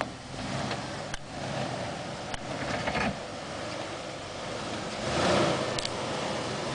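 Jeep Wrangler engine working at low speed as the Jeep crawls up over rocks, with a louder rush of noise about five seconds in.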